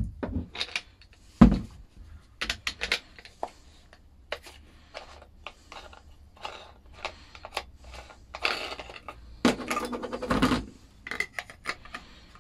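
Clicks, knocks and metal clinks of an angle grinder being handled while its flap disc and locking nut are taken off and another disc is fitted. There is a longer run of rattling about eight to ten seconds in. The grinder is not running.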